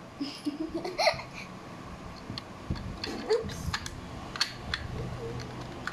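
Small plastic Polly Pocket accessories tapping and clicking as they are set onto the plastic Megamall playset, several separate clicks through the middle. A child makes a few short, wordless vocal sounds near the start and again about three seconds in.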